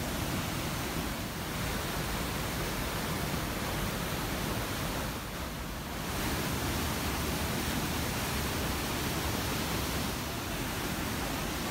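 Waterfall of heavy white river water pouring over a broad ledge into a churning pool: a steady, even rush of falling water.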